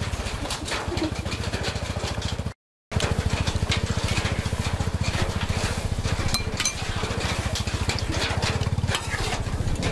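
A small engine running steadily with a fast, even chugging pulse, cutting out briefly a little over two seconds in. Light clicks of a spoon in a metal bowl sit on top.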